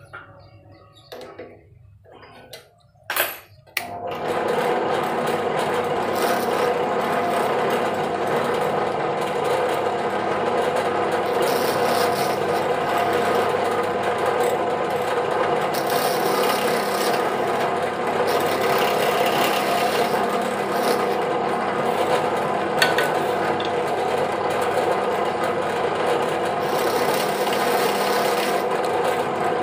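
A sharp click about three seconds in, then a bench drill press motor starts and runs steadily while its bit cuts into a small block of hardwood held against it, a rasping, filing sound over the motor's constant hum.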